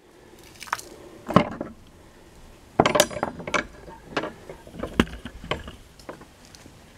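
Metal clinks and knocks of an old iron ring key and lock being worked in a weathered wooden door: a run of about seven sharp strikes, the loudest with a brief metallic ring about three seconds in.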